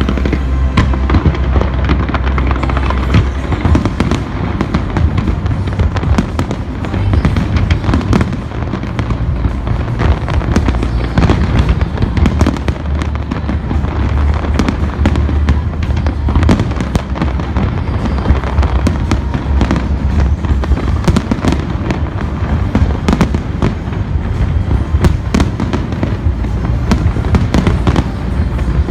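A large fireworks display: a dense, continuous barrage of shell bursts and crackling, many bangs a second with no pause, with music playing underneath.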